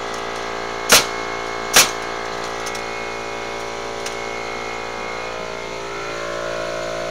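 A steady machine hum, like a running motor or engine, whose tone shifts slightly about six seconds in. Two sharp, loud impacts land a little under a second apart, about a second in.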